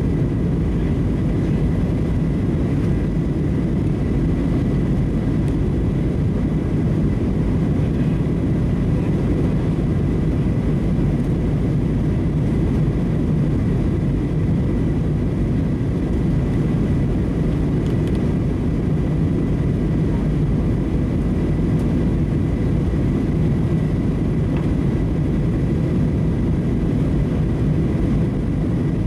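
Steady cabin noise of a Boeing 737-700 during descent, heard from a window seat by the wing: its CFM56-7B jet engines running and air rushing past the fuselage blend into a deep, even rumble with a faint high steady tone above it.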